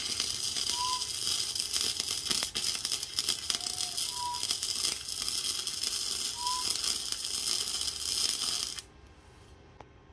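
Electric welding arc crackling in one continuous run, welding studs onto a steel seat-mounting bracket; it cuts off suddenly near the end.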